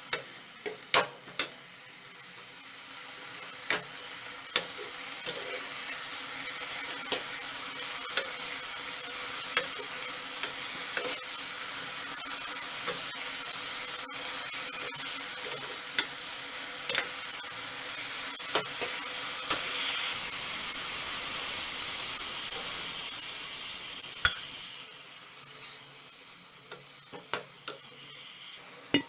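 Greens stir-frying in a pan with a steady sizzle, and the spatula clicking against the pan now and then as it is stirred. About two-thirds through, the sizzle grows louder for a few seconds, then settles down again.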